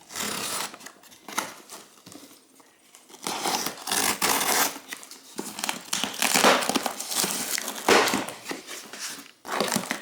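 Packing material in a just-opened shipping box being handled and pulled out, crinkling and rustling in repeated bursts, busiest in the second half.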